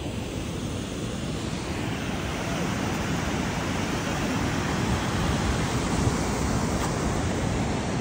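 Water pouring in heavy flow over a curved concrete weir, a steady rushing noise that grows a little louder from about two seconds in.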